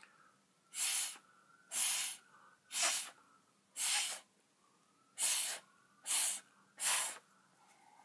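Seven short, hard puffs of breath blown through a drinking straw onto wet fluid acrylic paint, about one a second, spreading the white paint into lacing.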